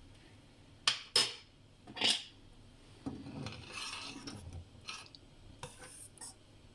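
A spoon knocks sharply three times against a pot, then scrapes and stirs inside it, with a few lighter clicks near the end, as a spoonful of sugar is stirred into simmering tea.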